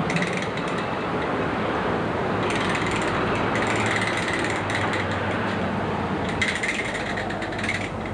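Steady outdoor background noise with two spells of rapid rattling clicks, one about two and a half seconds in and another near the end.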